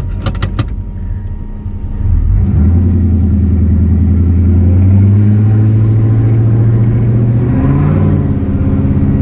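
Turbocharged Lincoln Town Car's 4.6 V8 running, with a few light clicks in the first second. About two seconds in it gets louder and deeper as the revs rise and hold steady. There is no exhaust tick: the new copper header gaskets and the re-welded primary tube are sealing, with no exhaust leaks.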